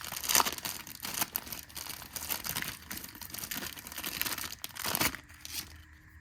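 Packaging of a new replacement part being opened by hand, with a run of crinkling and tearing that stops about five and a half seconds in.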